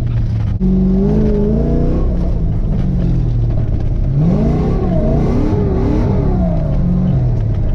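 LS1 V8 engine in a swapped 1987 Mazda RX-7 FC revving under throttle changes while drifting. There is a brief break about half a second in. About four seconds in the pitch climbs, wavers up and down, and then falls away.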